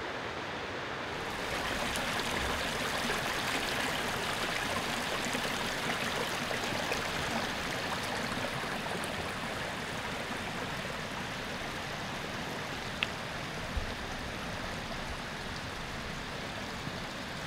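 Shallow stream running over stones, a steady rush of water that gets louder about a second and a half in; a single sharp click late on.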